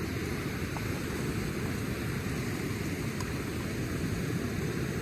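Flowing river water: a steady, low rushing noise with no breaks.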